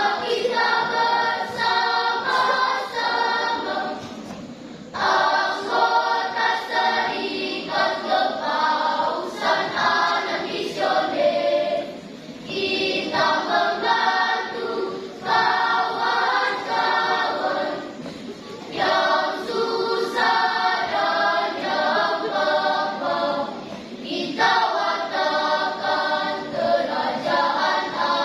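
Children's choir singing in phrases, with short breaks for breath between them.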